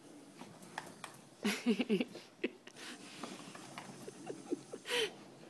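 A dog making short grumbling vocal sounds while nosing and mouthing a new toy, with small clicks and rustles between. A cluster of grunts comes about a second and a half in, and one more short, louder sound near the end.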